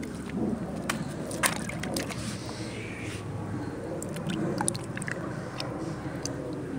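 A bucket of water holding live snakeheads is handled on wooden deck slats: scattered knocks and clicks with some sloshing, over a steady low background noise.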